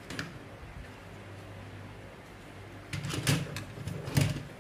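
A cassette deck mechanism is handled and lifted out of a boombox: plastic-and-metal knocks and rattles, loudest in a burst of clatter about three to four seconds in, over a steady low hum.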